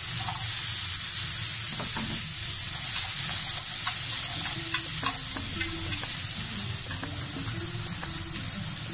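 Chopped onion frying in hot oil in a nonstick frying pan with cashews, a steady sizzle, with light clicks of wooden cooking chopsticks stirring against the pan.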